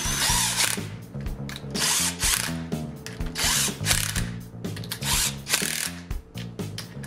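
Cordless drill with a socket bit running in several short bursts, driving bolts that fasten a flat belt strap to the drop hammer's ram. Background music plays underneath.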